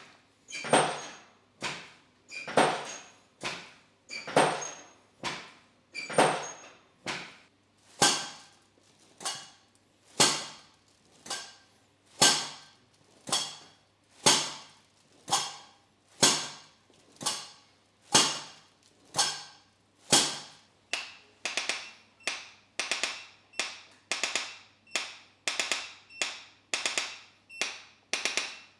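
A steady series of sharp knocks, about one a second, each ringing briefly. From about twenty seconds in, each knock becomes a quick cluster of three or four taps.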